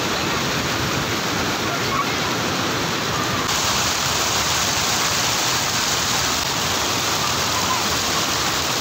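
Water spilling over a low weir and foaming through the shallows below it, a steady rushing noise.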